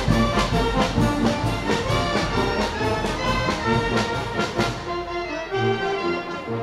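A marching brass band playing, with trombones, trumpets and clarinets over a steady beat. About five seconds in the sharp, high beat drops away and the horns carry on more plainly.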